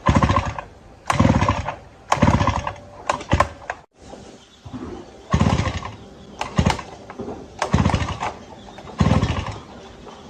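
Small motorcycle engine being cranked over in short repeated bursts, about one a second, without starting. The bike has been brought in because its engine won't fire.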